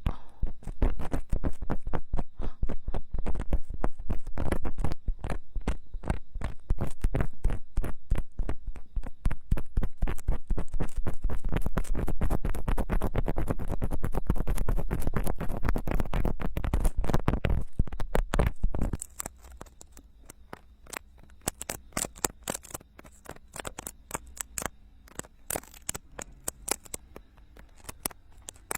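Ear-cleaning tools scraping and rubbing inside silicone binaural microphone ears: dense, loud crackling scratches with a heavy low rumble. About two-thirds of the way through they drop to faint, scattered clicks.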